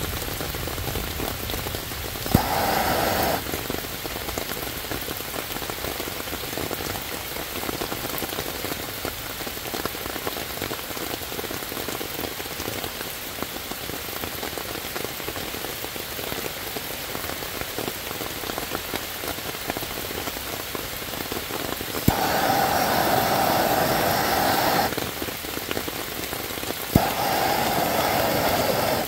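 Steady rain falling on wet ground and leaves. Three times a handheld gas torch clicks alight and hisses as its flame is played into the damp kindling: once briefly early on, then for about three seconds, then again near the end.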